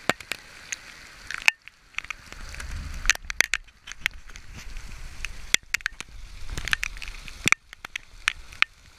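Heavy rain striking a GoPro camera, heard as sharp, irregular clicks and crackles, with a low wind rumble on the microphone swelling twice.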